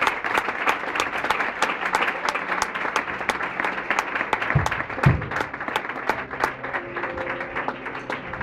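A congregation applauding, the dense clapping thinning out toward the end, with two dull thumps about halfway through.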